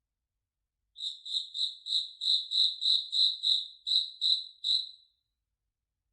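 A cricket chirping, a high-pitched chirp repeated about three times a second. It starts about a second in and stops about five seconds in.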